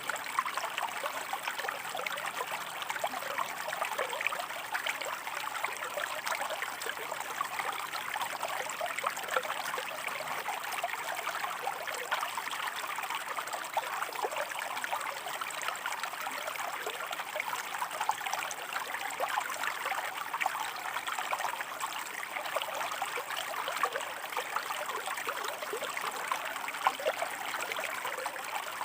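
A shallow river or stream running over rocks, babbling and trickling steadily.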